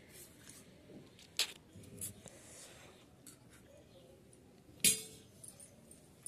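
A metal spoon clinking against a steel plate of rice, a few separate sharp clinks, the loudest about five seconds in.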